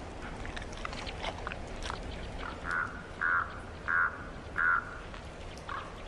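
Common raven calling: a run of four rough croaks about two-thirds of a second apart, then one more near the end.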